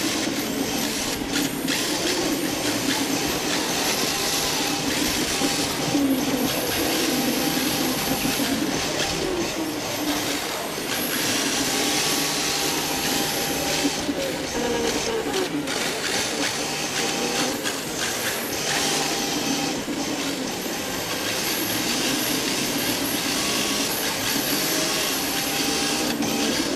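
Onboard sound of an electric rear-wheel-drive RC drift car running on a smooth indoor track: a steady whir of motor and gears with hard tyres hissing as they slide. The motor pitch rises and falls a few times with the throttle.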